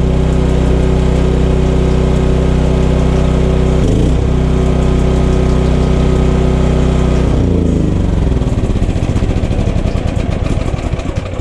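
Champion 9000-watt portable generator's engine running at a steady speed, with a brief dip about four seconds in. Its pitch falls about seven and a half seconds in as the engine slows.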